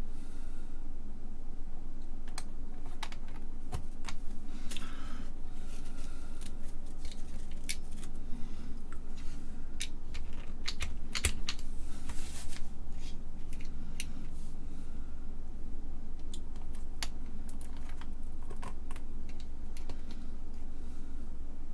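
Scattered small clicks and taps of hands handling DIP integrated circuits and small parts on the workbench, a little denser about halfway through.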